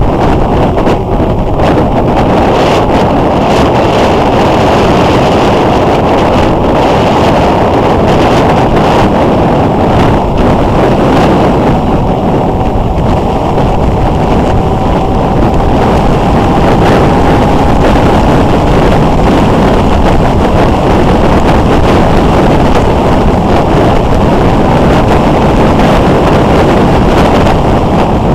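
Loud, steady wind rush on the microphone of a camera mounted on a moving motorcycle at road speed. Under it the motorcycle's engine runs at a steady pitch that drifts up slowly.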